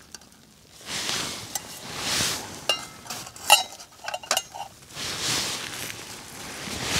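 A lightweight metal cooking pot and a thin beer-can windscreen being set onto a mini alcohol stove: several short metallic clinks and scrapes, a couple of them ringing briefly, around the middle.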